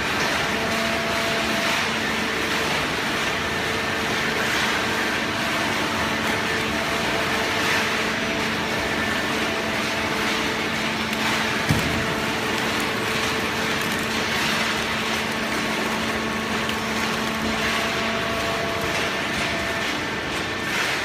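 Fully automatic horizontal hydraulic baling press running with a steady machine hum and a few held tones, with one sharp knock about twelve seconds in.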